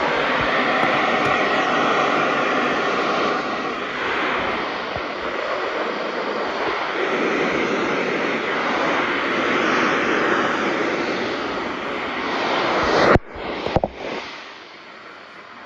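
Steady hiss of radio static from a weakly received broadcast, with faint steady tones under it for the first few seconds. It cuts out abruptly about 13 seconds in with a couple of short crackles, then settles to a quieter hiss.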